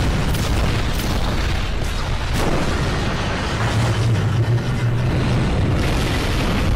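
Battle sound effects from an animated video: a continuous rumble of explosions and booms, with a steady low hum in the middle.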